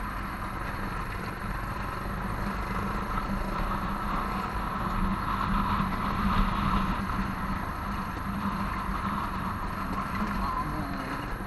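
A motorcycle engine running steadily at low road speed, heard from a camera mounted on the bike, mixed with road and wind noise.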